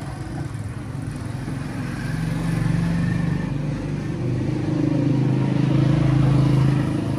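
A motor running with a low, steady hum that grows louder about two seconds in and again near the end.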